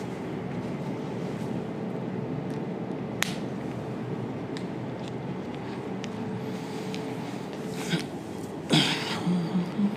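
Steady low hum of room noise during a pause in a lecture recording. There is a sharp click about three seconds in and a short breathy noise near the end.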